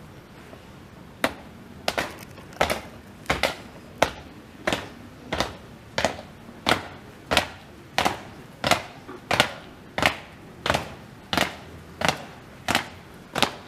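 Shoes of a small squad marching in step, striking pavement in a slow, even beat of about three steps every two seconds. The steps begin about a second in.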